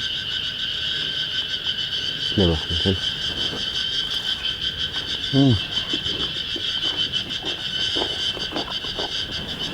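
Steady shrill drone of a cicada chorus in the forest, unbroken throughout, with scattered soft ticks and taps in the second half.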